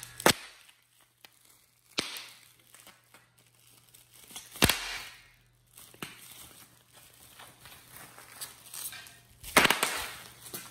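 A few scattered sharp knocks and rustling noises, over a faint steady low hum. The loudest knocks come near the start, at about two and five seconds, and in a short cluster near the end.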